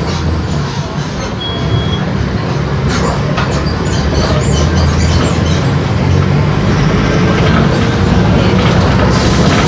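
Mercedes-Benz OF-1418 bus's diesel engine running with a steady low rumble, mixed with rattling and clicking from the bus body.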